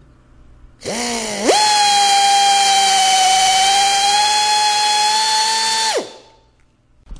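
Compact right-angle air drill boring out a broken exhaust manifold stud with a larger step-up bit. It starts about a second in, climbs to full speed with a steady high whine over air hiss, and cuts off about a second before the end.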